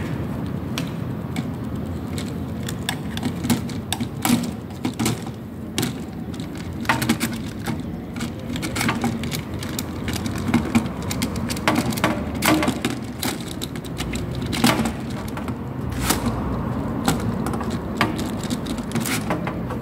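Plastic clicks and snaps of miniature circuit breakers being unclipped from and pushed onto a DIN rail in a distribution board, irregular sharp clicks throughout, over a steady low rumble in the background.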